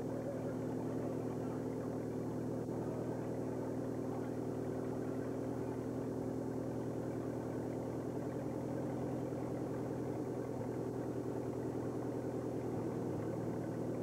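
An engine running steadily at a low, even speed, its pitch shifting slightly near the end.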